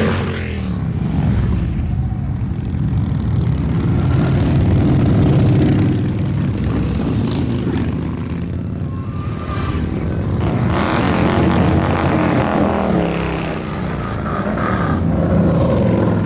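A stream of motorcycles, mostly Harley-Davidson V-twins, riding past in a parade. The engines run without a break, swelling and sliding in pitch as bikes go by, most plainly about ten seconds in and again near the end.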